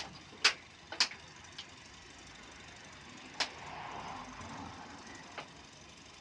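A few short, sharp clicks or knocks over a quiet background: two loud ones about half a second and one second in, a softer one soon after, another a little past three seconds and a faint one near the end.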